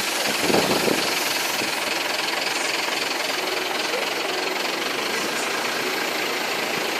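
Boat engine running steadily, a dense mechanical noise, with a brief louder surge about half a second in.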